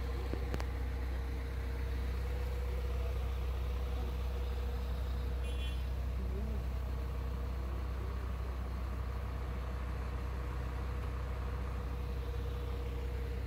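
Motor vehicle engine running with a steady low drone, heard from inside the vehicle, with a short high chirp about halfway through.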